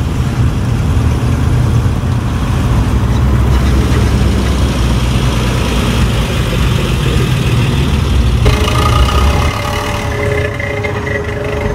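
Classic cars driving slowly past one after another, their engines running with a low rumble. About eight and a half seconds in, a steady higher-pitched tone joins in and the low rumble fades soon after.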